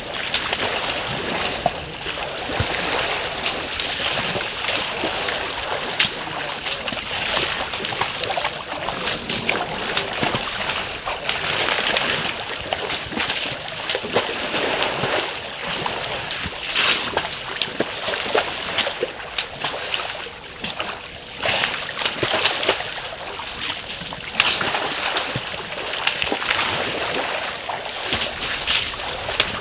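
Elephants splashing and wallowing in a shallow waterhole: a steady wash of water sloshing, broken by many small splashes and drips.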